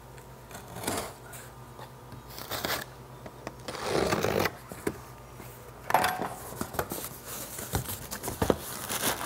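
Utility knife slicing through packing tape on a cardboard box in several scraping strokes, the longest about four seconds in, followed by the cardboard flaps being pulled open.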